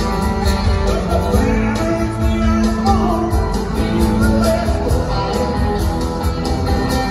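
Rock band playing live with electric guitars, drums and a male lead vocal, heard from among the concert audience.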